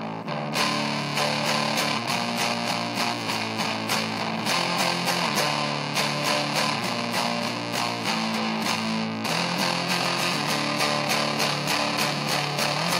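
Rock music: distorted electric guitar playing chords over a steady beat, which comes in louder about half a second in, with chord changes every few seconds.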